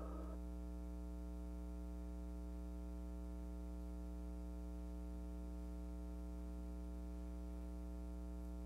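Steady low electrical hum with a buzzy edge, unchanging throughout, after the last of a piece of music fades out in the first moment.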